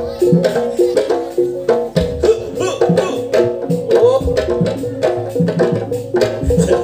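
Traditional music for Madurese pencak silat: a melody with sliding, ornamented notes over quick, steady drum strokes.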